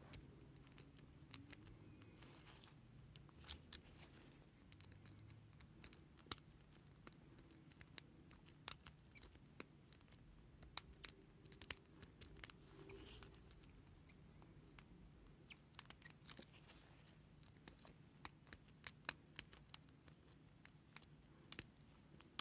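Faint, irregular metallic clicks and ticks of a diamond lock pick and tension wrench working the pin tumblers inside a lock, with a few sharper clicks scattered through.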